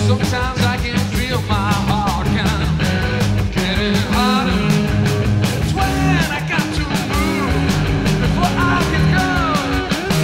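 Live rock power trio playing: electric guitar, bass guitar and drum kit, with a lead line of bent, wavering notes over the steady bass and drums.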